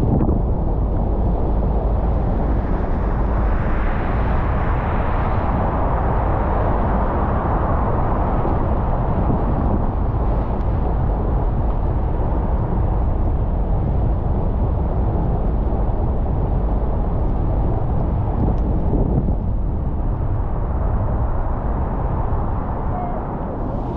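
A car driving on rain-wet streets: a steady low rumble of road and tyre noise with a hiss of wet tyres, which swells from about three to eight seconds in.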